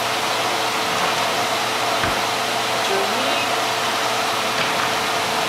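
Steady whirring, rushing noise with a constant low hum, like a small fan or motor running.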